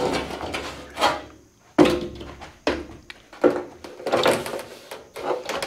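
Irregular knocks and clanks from work on corrugated sheet-metal panels, about six or seven strikes, several with a short metallic ring.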